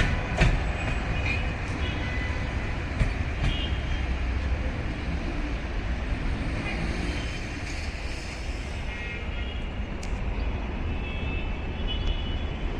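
A train rolling through a station: a steady low rumble, with a few clanks in the first three seconds.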